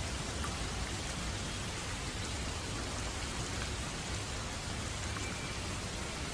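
Steady rain falling, with an even hiss and scattered drop ticks.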